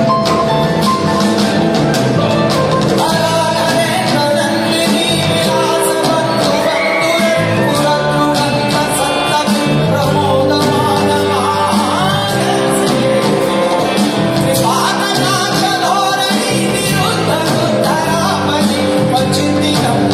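Live band music with a male lead singer, heard through the PA from among the audience in a large tent hall.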